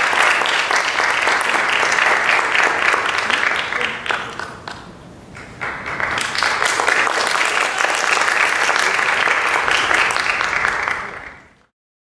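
Audience applauding. The clapping dips about four seconds in, swells again, then fades and cuts off near the end.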